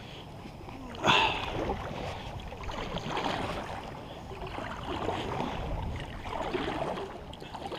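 Kayak paddle strokes splashing through the water, rising and falling with each stroke, with one louder, sudden splash about a second in.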